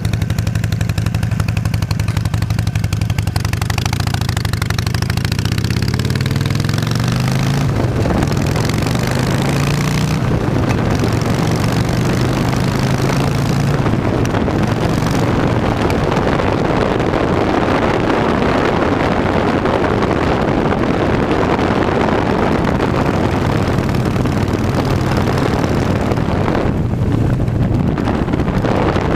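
2008 Harley-Davidson Nightster's air-cooled V-twin under way, its pitch rising as it accelerates over the first several seconds. After that it runs at speed under heavy wind and road noise.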